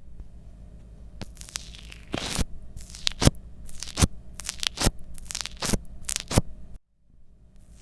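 Slime being squished and stretched by hand, giving irregular sharp pops and crackles over a low hiss. The sound cuts out suddenly near the end.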